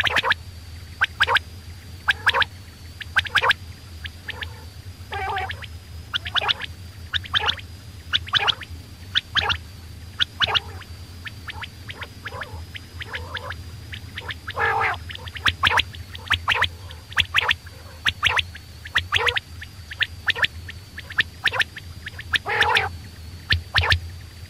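Coturnix quail calling: short calls repeated about once a second, sometimes two or three in quick succession, over a steady low hum and a faint high whine.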